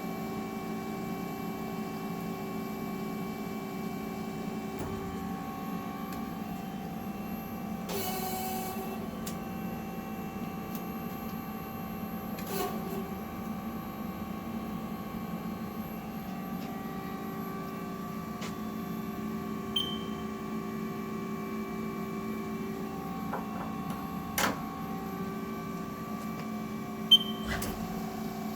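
Haas ST-20 CNC lathe running: a steady machine hum with several whining tones that drop out and come back, and a few sharp clicks, the loudest near the end.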